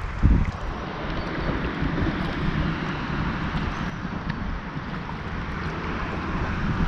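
Fast river water rushing around a small boat drifting downstream, with wind buffeting the microphone and a low thump just after the start.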